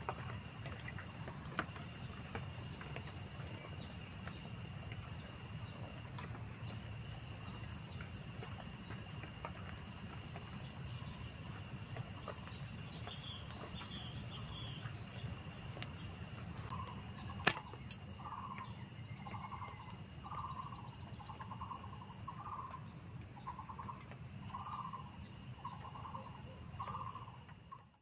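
Outdoor insect chorus, a high-pitched shrill that swells and fades about every two seconds. Over the second half a bird repeats a short call about ten times, roughly once a second, with a few faint higher chirps a little before.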